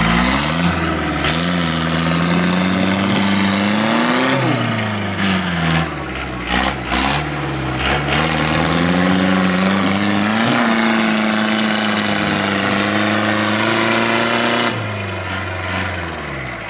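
Small tractor's engine revving up and down under load as it labours through deep mud. Its pitch climbs, holds high for several seconds and falls back near the end, with a few short knocks in the middle.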